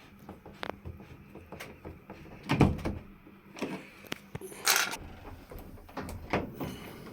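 Ceiling fan parts being handled and fitted: scattered clicks and knocks, a heavier thump about two and a half seconds in, and a short scrape near five seconds.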